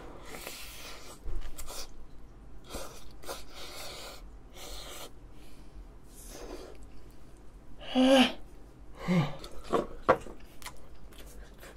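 A man with a mouthful of hot kimchi fried rice, huffing short sharp breaths through his mouth to cool it. A couple of short voiced groans come near the end.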